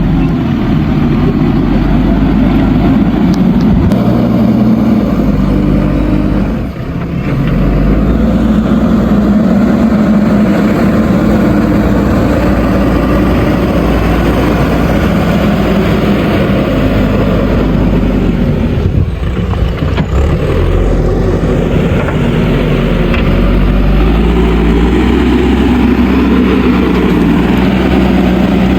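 JCB backhoe loader's diesel engine running under working load, its pitch stepping up and down as the load changes, with brief drops about 7 and 19 seconds in.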